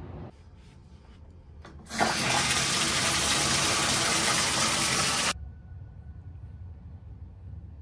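Bathtub faucet running full, water gushing hard for about three seconds, starting and cutting off suddenly.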